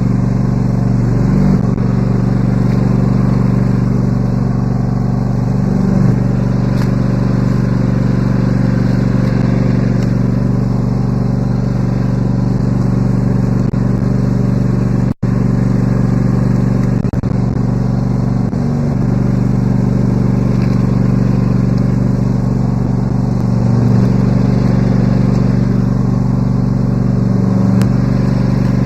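Riding lawn mower engine running steadily at close range, its pitch wavering briefly a few times, with a momentary break about halfway.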